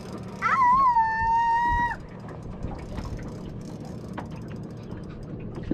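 Spinning fishing reel being wound in, with light clicking, while a fish is played on the line. Near the start, a high held cry, wavering and then steady, lasts about a second and a half and is the loudest sound.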